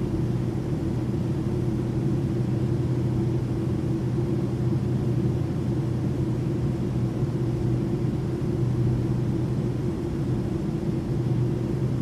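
Airplane cabin interior in flight: a steady low drone of engine and airflow noise with a constant low hum.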